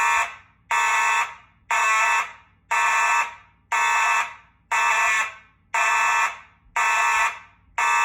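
Two Simplex mechanical fire alarm horns sounding together in an even pulsed pattern, about one blast a second, each blast a little over half a second long.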